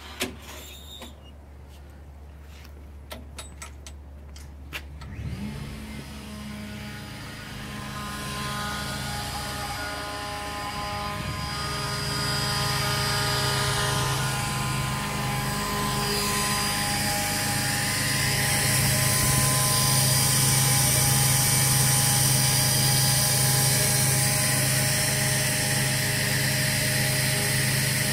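A few clicks and knocks, then about five seconds in an Airworks E60 battery-powered, truck-mounted air compressor starts and runs with a steady electric hum that grows louder over the following ten or so seconds, then holds.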